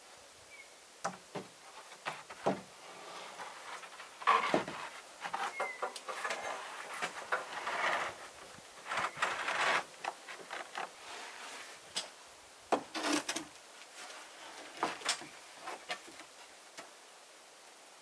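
Irregular knocks, taps and scraping of a charred wooden roof board being handled and pressed into place along the roof edge, busiest about four to ten seconds in, with a sharp knock near the start of that stretch.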